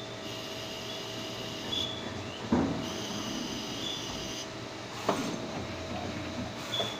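CNC turning lathe running, turning a small pin from bar stock under coolant: a steady machine hum with a high thin whine that stops and starts, and two sharp metallic clunks about two and a half and five seconds in.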